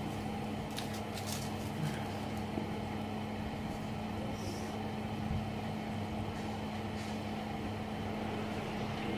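Steady low machine hum with a constant tone and a few faint ticks.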